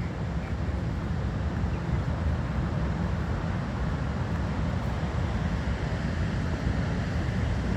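Steady, low rushing roar of the Zambezi River pouring over Victoria Falls.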